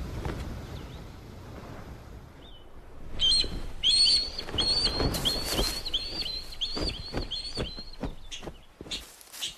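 Ospreys giving a run of shrill, repeated whistled chirps, about three a second, starting about three seconds in and lasting some five seconds. Wings flap and rustle through it. These are the agitated calls of a nest owner seeing off an intruding osprey.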